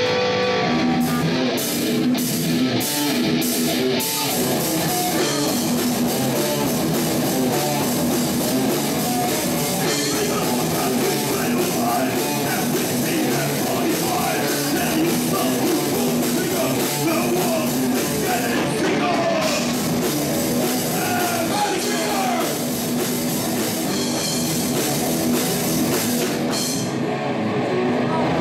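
Heavy rock band playing live: distorted electric guitars, bass and drum kit at full volume. A guitar is heard alone at first, with the drums and the rest of the band coming in about a second in.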